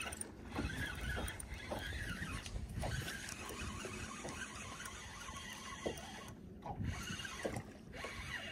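Spinning reel being cranked on a retrieve, with a few short calls that rise and fall in pitch, near the start and again near the end.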